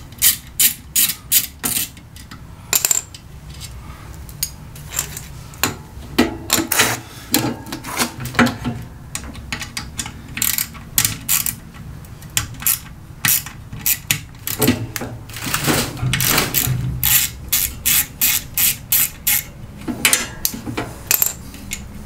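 Quarter-inch socket ratchet clicking in quick runs of sharp metallic ticks as a bolt is worked loose on a washing machine motor.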